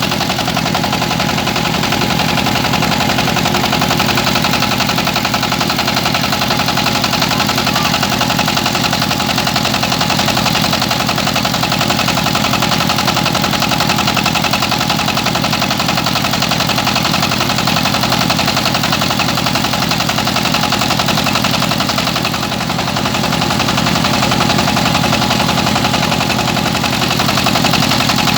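Rice milling machine running steadily: a continuous mechanical drone with a rapid even beat and a steady whine.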